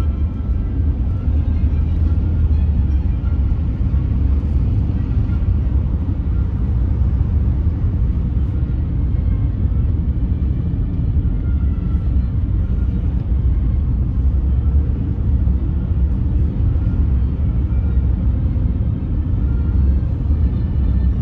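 Car driving, a steady low rumble of engine and road noise with no change in level, and music playing faintly underneath.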